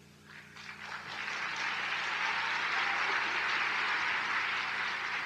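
Large audience applauding, building up within about a second and then holding steady.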